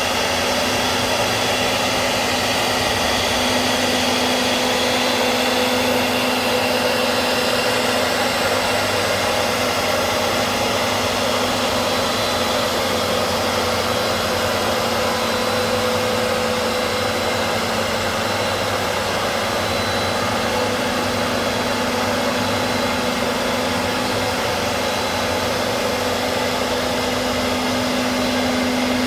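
CNC router running steadily: a constant rushing noise with a steady hum and a faint high whine through it.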